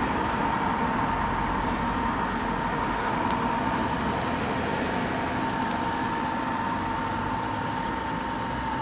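Audi A8 D4's 4.2-litre FSI V8 idling steadily, with a thin steady whine running over it.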